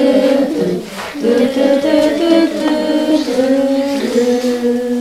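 Children and a woman singing a simple tune together, holding each note and moving from note to note in steps.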